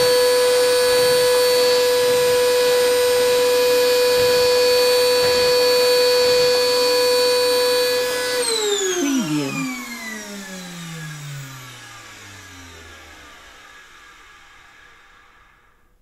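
Vacuum cleaner motor running with a steady high whine, then switched off about eight seconds in, its pitch falling as the motor winds down and fades out.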